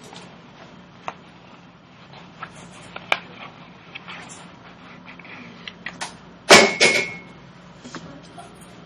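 Paper rustling and light taps as glued construction paper and a paper portfolio are handled and pressed down by hand. About two-thirds of the way in comes one louder double clatter with a brief ring.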